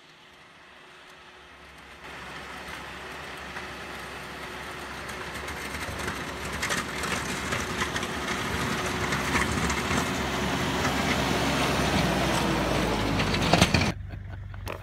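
Kioti tractor's diesel engine approaching from a distance and passing close by as its front blade plows snow, growing steadily louder until it cuts off abruptly about a second before the end.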